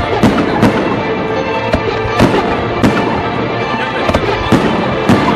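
Aerial fireworks shells bursting in a rapid, irregular string of a dozen or so loud bangs, over music playing underneath.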